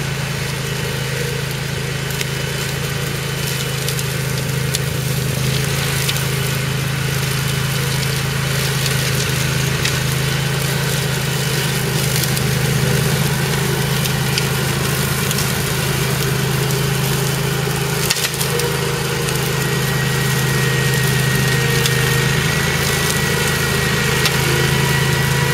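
OREC Rabbit Mower RM951 ride-on brush mower's engine running steadily under load as the mower climbs a steep grassy slope. A thin whine joins in near the end.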